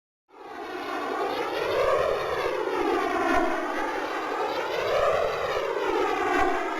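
A siren-like wailing tone with several overtones, its pitch slowly rising and falling in long swells about every three seconds, fading out near the end.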